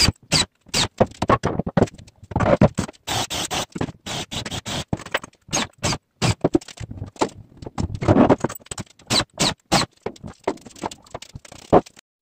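DeWalt cordless drill-driver running screws into thick timber boards. It comes in many short stretches of whirring and grinding that start and stop abruptly, one after another.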